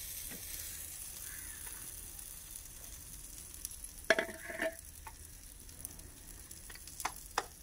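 A paratha frying on a griddle over a wood fire, sizzling steadily. A sharp clatter about four seconds in and a few short clicks near the end.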